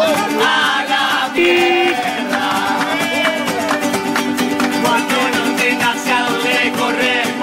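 Small acoustic band playing live: strummed acoustic guitars and a small ukulele-type guitar keep a quick rhythm while several men sing together.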